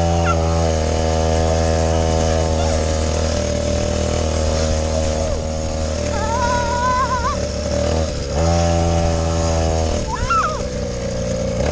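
Small 50cc engine of a kids' XTM quad bike running under throttle on an off-road trail. It holds a steady buzzing note, drops off briefly about eight seconds in, then picks back up.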